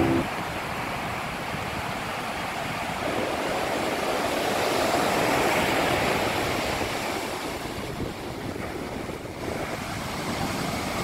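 Ocean surf breaking and washing up the beach, a continuous rush that swells for a few seconds, eases off briefly, then builds again near the end.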